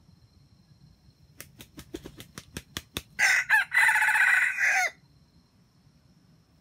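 Red junglefowl rooster crowing once, a pitched call of under two seconds that falls at the end. It comes right after a quick run of about ten sharp claps.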